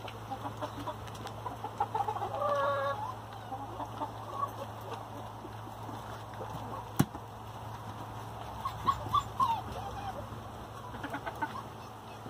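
Hens clucking with short, scattered calls, with one longer drawn-out call about two seconds in and a single sharp click about seven seconds in, over a steady low hum.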